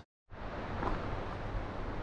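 Silence for a moment, then a steady low rumble of wind on the microphone over outdoor ambience.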